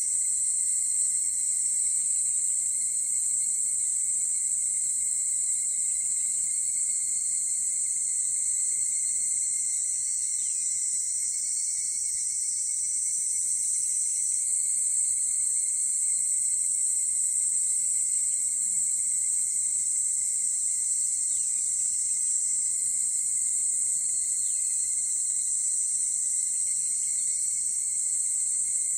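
Higurashi cicadas (Tanna japonensis) calling in a chorus that blends into a steady, high-pitched ringing, with faint short falling chirps every few seconds.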